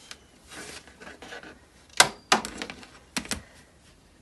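Rotary cutter scraping through quilting fabric against an acrylic ruler on a cutting mat, with several sharp clicks and knocks as the ruler and cutter are handled, the loudest about two seconds in. The blade is dull enough that the quilter says it is time to replace it.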